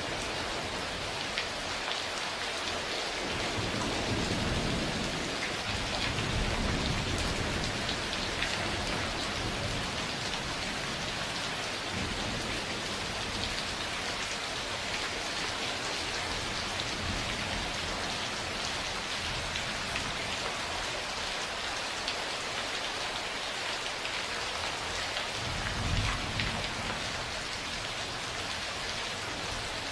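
Steady rain falling, with scattered close drop ticks. Thunder rumbles low twice: a longer roll a few seconds in and a shorter one near the end.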